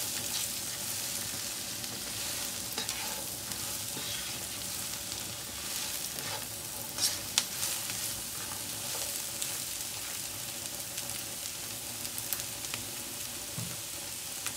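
Chopped cabbage sizzling in hot olive oil in a nonstick pot while it is stirred, the utensil scraping and clicking against the pan, with two sharper knocks about seven seconds in. The stirring stops near the end and the sizzle goes on.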